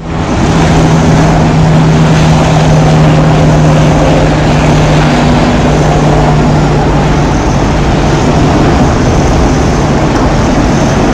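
Motorboat running at sea: a steady low engine hum under loud rushing wind and water noise, the hum fading about seven seconds in.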